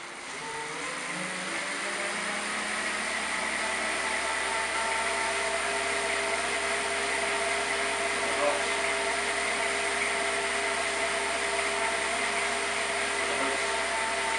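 Indoor turbo trainer whirring as the rear tyre of a Trigon road bike spins on its roller under pedalling. It rises in pitch over the first couple of seconds as the wheel spins up, then holds a steady whine.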